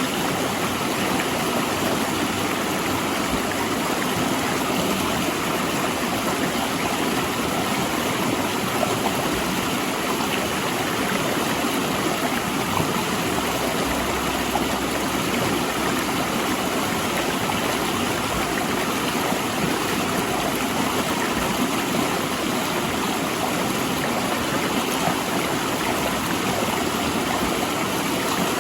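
Mountain river rushing between large rocks: a steady, unbroken rush of water.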